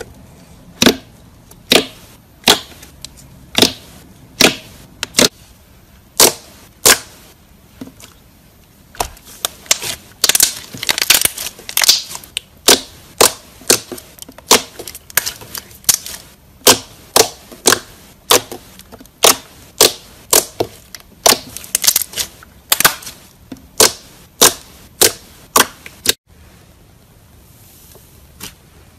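Glossy slime being poked, pressed and squeezed by hand, popping with loud sharp clicks of trapped air about once a second, with stretches of quicker crackling. The clicking stops about three seconds before the end.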